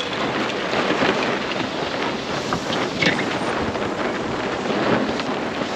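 Steady wind noise on the deck, with sailcloth rustling and flapping as a sail is lowered.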